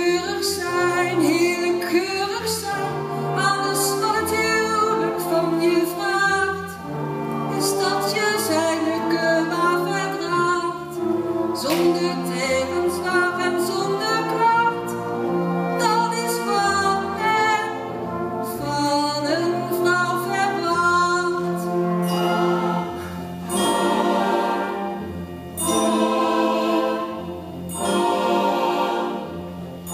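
Singing with live band accompaniment: sung phrases over sustained low bass notes, with short pauses between the phrases.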